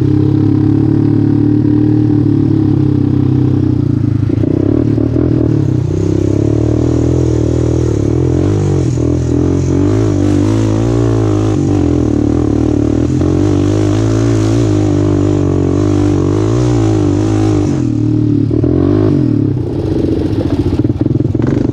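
Utility ATV engine running under way on a rough dirt trail, its pitch wavering up and down with the throttle through the middle, easing off briefly near the end.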